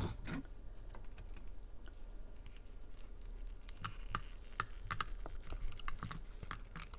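Faint, scattered wet clicks and smacks of someone chewing soft fruit jelly, a few a second.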